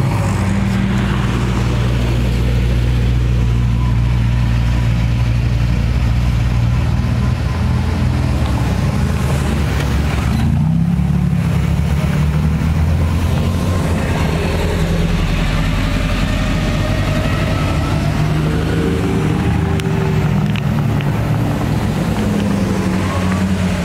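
Sports car engines running at low revs as cars move past slowly. The engine note holds steady, then its pitch shifts up and down a little about halfway through and again near the end.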